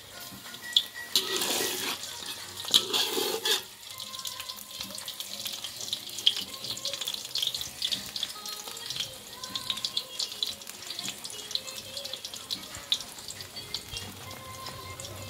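An egg frying in hot oil in a non-stick wok, sizzling with many small crackles and pops. There are two louder bursts of sizzling in the first four seconds.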